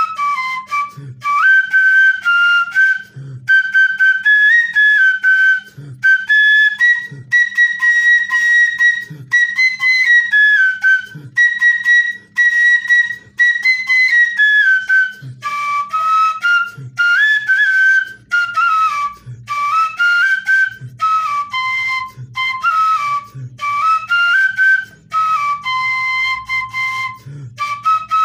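Background music: a single high, flute-like melody moving in steps over low drum beats that come every second or two.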